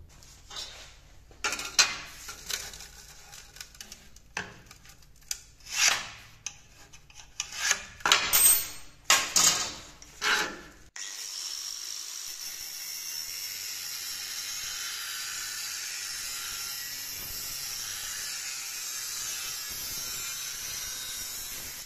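Scraping and knocking as a line is marked on a steel rectangular tube and the tube is handled on a steel table. Then, about eleven seconds in, a small angle grinder with an old cut-off disc cuts through the tube with a steady high hiss, cutting cleanly along the line.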